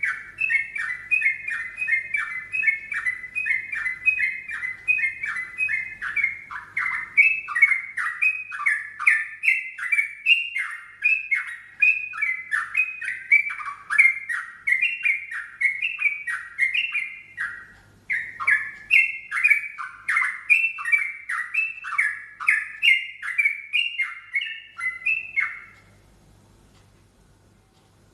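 Yellow-vented bulbul (trucukan) singing a long, rapid run of short, downward-slurred notes, a song its keeper calls strange. It breaks briefly about 18 s in and stops about 26 s in, picking up again right at the end.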